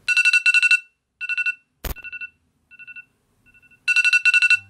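Phone alarm trilling: rapid electronic beeps on one fixed tone, in short groups that grow fainter and sparser, then come back loud near the end. A single sharp click sounds about two seconds in.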